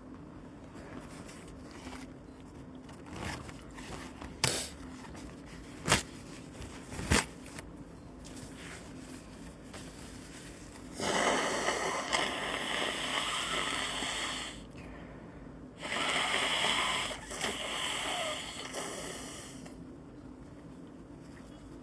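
A person's nose and breath sounds: three quick, sharp sniffs about a second apart, then two long, noisy nose blows of about three seconds each.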